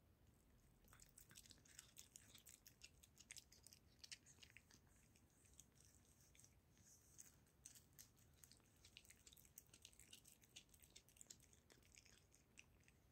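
Tabby kitten chewing and licking at a piece of liverwurst in its casing: a faint, irregular run of quick clicks and smacks, starting about a second in.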